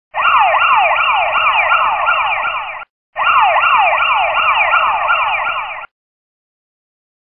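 Siren-like electronic sound effect: two bursts of rapidly repeating falling whoops, about three a second, each burst lasting nearly three seconds with a brief gap between them.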